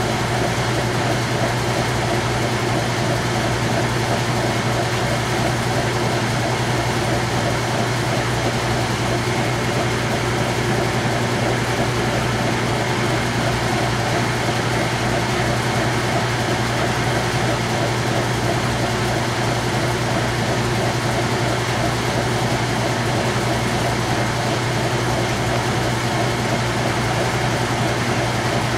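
Kenmore 70 series direct drive top-load washer in its rinse spin: the motor and spinning basket give a steady, unchanging hum with a strong low drone.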